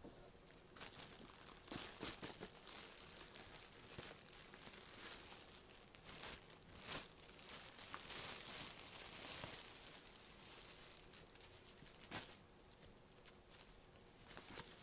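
A doll's packaging bag and wrapping crinkling and rustling as they are handled and pulled open, in irregular runs of crackles that come and go, loudest in the middle stretch.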